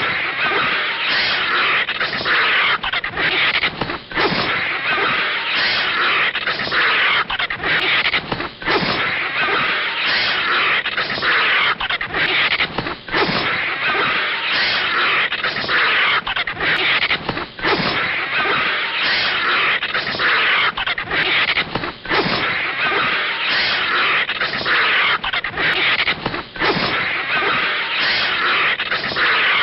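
Anime sound effects of a snake and a vulture fighting: a continuous, dense noisy scuffle with pulses repeating about every two-thirds of a second.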